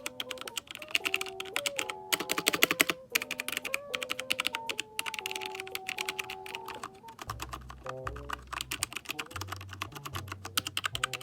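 Fast typing on a Havit 60% mechanical keyboard with brown switches: a dense, rapid run of key clacks, as a sound test of the switches. Music plays underneath, with a bass line coming in about seven seconds in.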